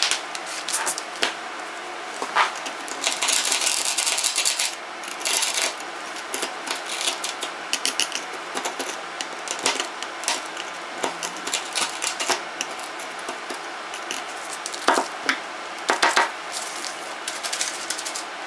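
The tip of a screwdriver picking and scraping at the cracked back glass of an iPhone 5, with irregular sharp clicks and ticks as glass chips break away. A stretch of harsher, continuous scraping comes a few seconds in.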